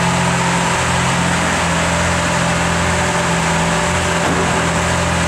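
Lamborghini Aventador LP700-4's V12 engine idling steadily, echoing in an underground parking garage.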